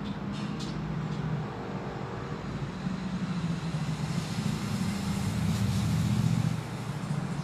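A motor engine running, its low hum swelling and peaking about six seconds in, then falling away sharply.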